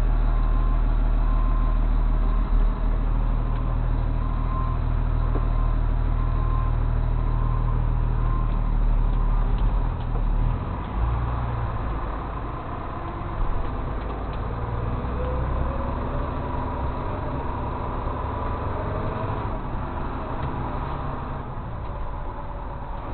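Tow truck's engine running while driving, heard from inside the cab: a steady low hum that eases off about ten seconds in, with the engine note rising again a few seconds later. A faint repeated tone sounds over it for the first several seconds.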